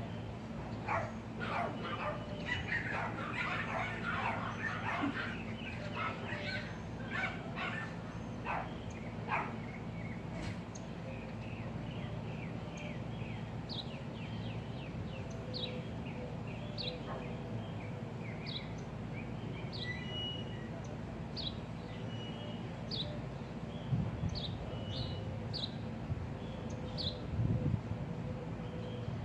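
A dog barking repeatedly for the first third, then a small bird chirping in short falling notes about once a second, all over the steady low hum of a central air conditioner's outdoor unit running. Two low thumps come near the end.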